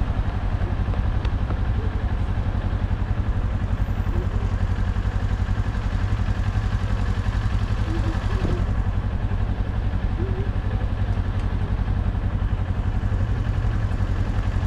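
Motorcycle engine idling steadily at a stop, with an even, fast throb.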